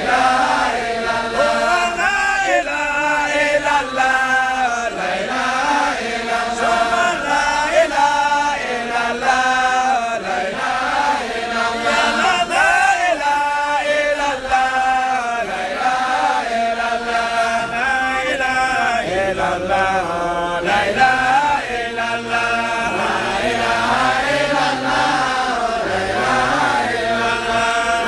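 Voices chanting an Islamic devotional litany (dhikr) without pause, a melodic recitation whose pitch rises and falls.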